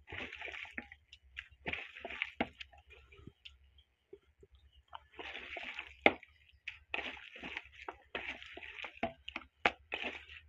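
A bare hand squishing and kneading chicken pieces through a thick, wet gram-flour (besan) batter in a stainless steel bowl, in irregular bursts with short pauses. A few sharp clicks come through, the loudest about six seconds in and near the end.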